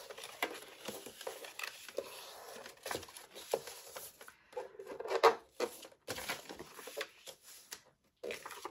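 Paper being folded and creased by hand on a plastic scoring board: irregular light rustling and soft taps of the sheet, a little louder around the middle.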